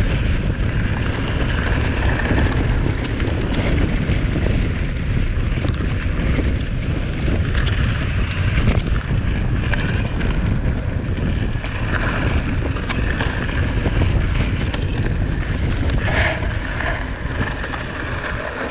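Wind rushing over the microphone and the rumble and rattle of a mountain bike running fast downhill over a rough trail, with scattered clicks and knocks from the bike.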